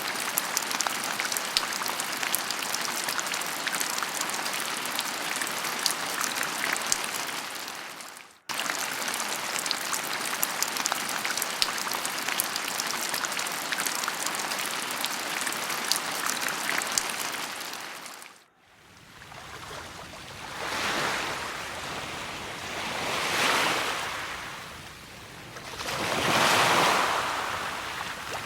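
Nature sound-effect ambience: a steady rushing water hiss with fine crackle, which breaks off and restarts abruptly about eight seconds in. About eighteen seconds in it gives way to ocean waves, swelling and falling three times, roughly every three seconds.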